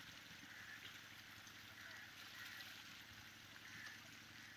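Faint, steady splashing and gurgling of pond water churned by a dense crowd of hybrid magur catfish thrashing at the surface.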